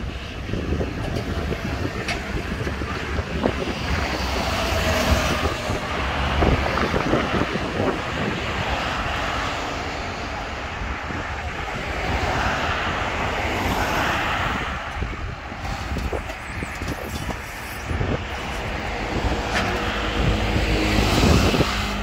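Wind buffeting the microphone over a steady low engine rumble and roadside traffic, with a motorcycle and a pickup passing close by near the end.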